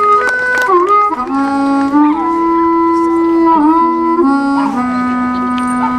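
A wind instrument playing a slow melody of long held notes, each sliding briefly into the next. A few last handclaps sound at the very start.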